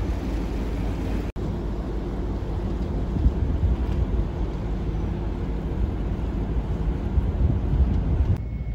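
Wind buffeting the microphone on a ferry's open deck over a low rumble, swelling and easing in gusts. The sound breaks off for an instant about a second in.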